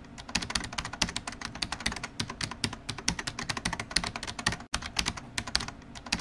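Rapid keyboard typing: a dense run of irregular key clicks, many a second, with a brief break a little past halfway.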